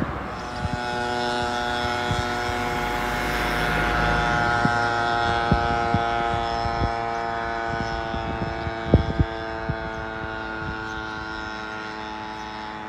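A steady engine drone on one unchanging pitch, swelling over the first few seconds and then slowly fading, with a few sharp knocks around the middle.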